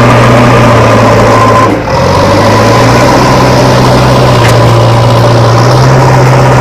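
Steady engine sound of an idling vehicle: a loud, constant hum with a short dip about two seconds in.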